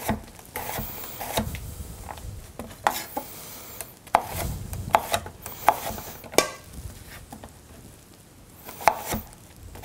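Chef's knife slicing a cucumber into rounds on a wooden cutting board: separate sharp knocks of the blade on the board, coming unevenly about once a second.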